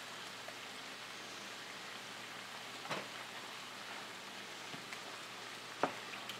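Eggs and vegetables sizzling steadily in oil in a hot frying pan, with two light knocks about three seconds apart as the pan is handled and stirred.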